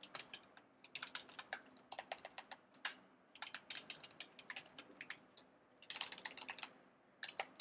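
Computer keyboard typing, faint, in short runs of rapid keystrokes with brief pauses between them.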